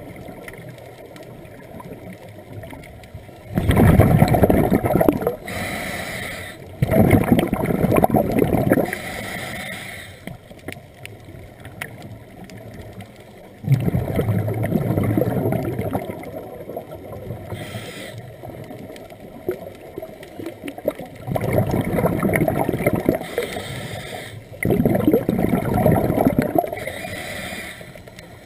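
A scuba diver breathing underwater through a regulator: exhaled bubbles rush and gurgle in loud bursts of a second or two, about five times, with quieter stretches between breaths.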